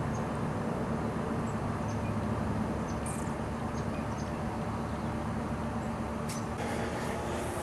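Steady low, machine-like outdoor background hum, with faint short high chirps scattered through it. A sharp click comes about six seconds in, after which the hum's tone shifts.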